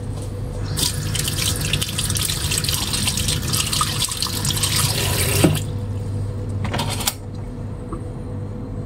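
Tap water running into a sink for about four and a half seconds, then shut off, followed by a brief second splash about a second later.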